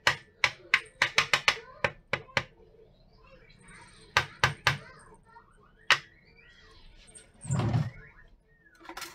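Small plastic jelly mould knocked and tapped against a plate to free a set raindrop cake: a quick run of sharp taps, about four or five a second, then a few single taps, and a duller, heavier thump near the end.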